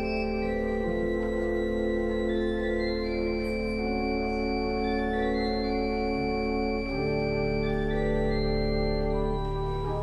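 Church organ playing slow, held chords, the notes changing every second or so; a lower bass note comes in about seven seconds in.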